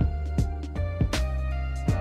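Background instrumental music: held notes over a regular beat, with a sharp hit about every three quarters of a second.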